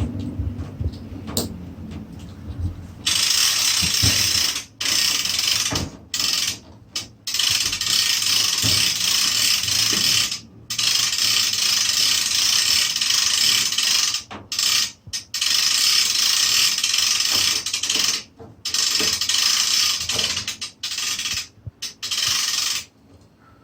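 Hand crane's crank winch ratcheting: fast pawl clicking as the handle is worked, in long spells broken by short pauses, starting about three seconds in.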